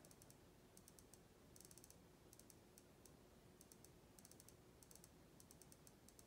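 Faint, quick ticking of an iPad Air's scroll-wheel picker as a finger flicks the tempo value upward. The ticks come in short clusters about every half second.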